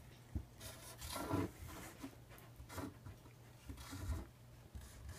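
Felt-tip marker drawing on corrugated cardboard: faint scratchy strokes in short, irregular bursts.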